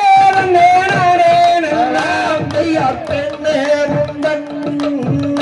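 Tamil kummi folk song: a singer holds long, wavering notes over a steady rhythm of percussion and dancers' hand claps.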